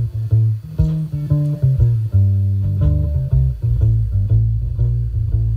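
Live folk band playing an instrumental passage with no singing: a prominent plucked bass line under repeated plucked string notes.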